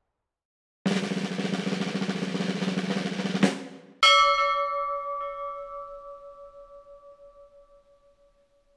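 A snare drum roll of about two and a half seconds that ends in a sharp hit, followed about half a second later by a single bell strike that rings out and fades with a wavering shimmer.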